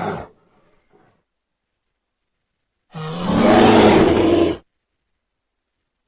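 Grizzly bear roar sound effects: the tail of one roar dies away at the start, then after about two seconds of silence a second deep, throaty roar lasts nearly two seconds and stops abruptly.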